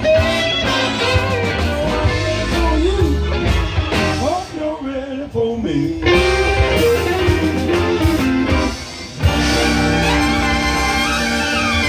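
A live blues band plays: electric guitars with bass and drums. The band drops out briefly just before nine seconds, then comes back in on a hit with sustained horn notes.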